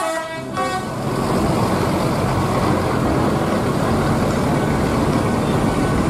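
A bus horn sounds for about the first half-second. Then comes a steady, loud run of tour-bus engines and road traffic.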